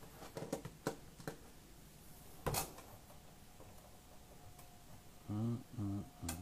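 Faint room tone on a call microphone with a few soft clicks and knocks, the loudest about two and a half seconds in. Near the end come a few short, low voiced sounds, like a person's murmur.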